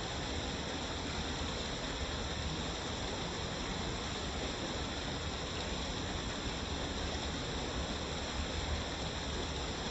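Waterfall rushing: an unbroken, even wash of falling water with no changes.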